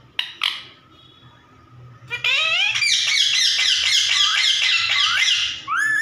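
Rose-ringed parakeet (Indian ringneck) giving a laugh-like chatter: after two short calls, a loud, fast run of squeaky high notes that rise and fall, about four or five a second, for roughly three seconds, ending with one call that rises and then drops.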